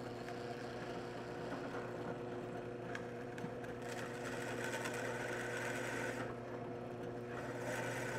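Benchtop drill press motor running with a steady hum as the bit drills into polycarbonate (Lexan) sheet, cutting easily with little resistance. A brighter, higher cutting sound rises about four seconds in and again near the end as the bit bites into the plastic.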